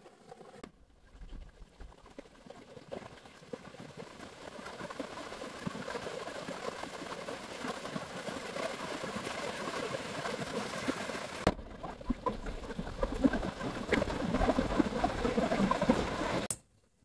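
Mountain stream rushing and splashing over rocks, growing louder, then cutting off suddenly near the end.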